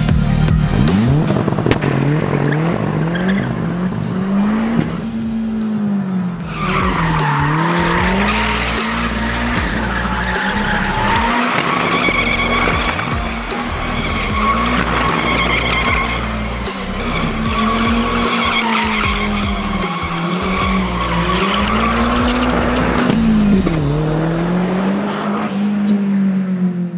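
Toyota MR2's turbocharged 3S-GTE engine revving hard in a burnout, its revs rising and falling every couple of seconds. From about six seconds in, the spinning tires shred against the pavement with a continuous high squeal. Music plays underneath.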